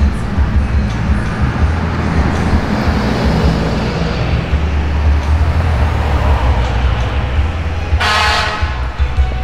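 Emergency vehicle engines running with a steady low rumble, and one short horn blast near the end.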